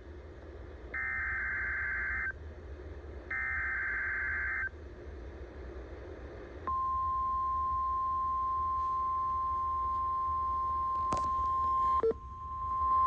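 NOAA Weather Radio Required Weekly Test: two buzzing bursts of the SAME digital alert header, each a little over a second long. About seven seconds in, the steady single-pitch warning alarm tone begins, broken twice briefly near the end.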